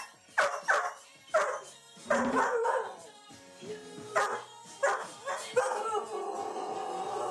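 A standard poodle barks along to music playing from DJ decks: a run of about seven sharp barks, then a longer drawn-out howl near the end.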